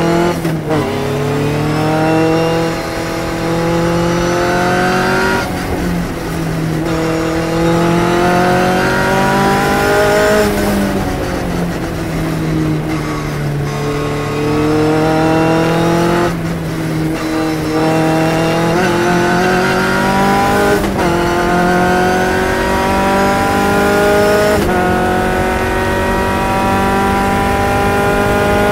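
Phantom S21 race car's engine at racing speed, heard from the cockpit. Its pitch climbs for several seconds at a time and drops back sharply about half a dozen times as the driver shifts gear and lifts for corners.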